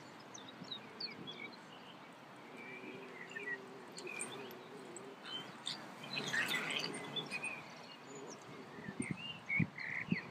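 Wild birds singing and chirping, short scattered calls over a steady outdoor background noise. A few low thumps start near the end.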